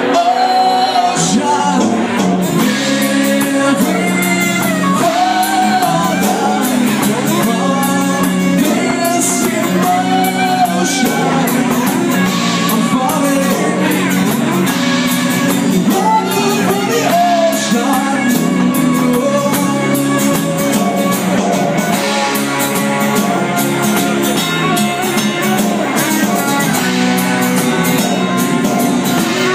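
Live rock band playing an original song: a man singing over strummed acoustic guitar, electric guitar and a drum kit with a steady beat.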